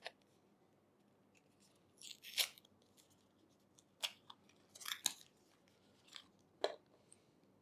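Faint crinkling and rustling of packaging in a few short bursts as a USB-C charging cable is unwrapped from its wrapping.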